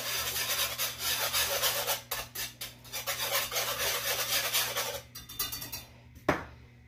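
Metal wire whisk beating a cream sauce in a non-stick stainless pan, with fast, even scraping strokes against the metal. The whisking stops about five seconds in, and a single sharp knock follows near the end.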